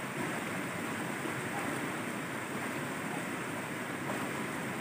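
Shallow stream water running steadily past a man's submerged arms: a continuous, even rushing.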